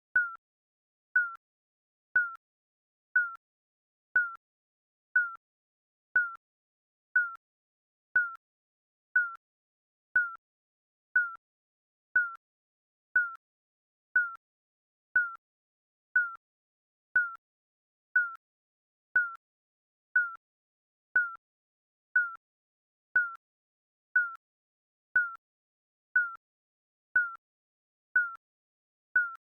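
Digital countdown-timer beep sounding once every second: a short, high, single-pitched blip with silence between.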